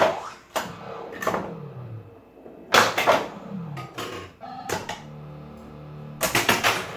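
Bally Flash Gordon pinball machine in play: sharp clacks of flippers, solenoids and the ball striking parts of the playfield, some in quick clusters. The machine's electronic sound effects run with them, including several falling-pitch tones and a steady alternating two-tone buzz about five seconds in.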